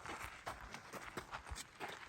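Hikers' footsteps on a mountain trail: a series of faint, uneven steps.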